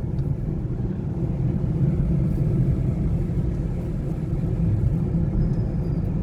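Steady low rumble of road and engine noise inside the cabin of a moving Maruti Suzuki Swift Dzire.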